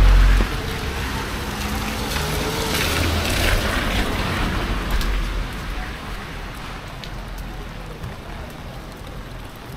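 Cars on a wet street: the low rumble of a passing vehicle cuts off about half a second in, then a car's engine and tyre hiss on the wet road swell and fade a few seconds later, over a steady wash of wet-street hiss.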